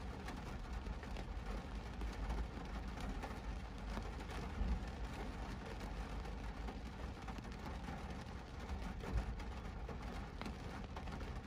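Rain falling on a stationary car's windscreen and roof, heard from inside the cabin over a low steady engine rumble, with many small drop ticks and a couple of louder taps midway and later.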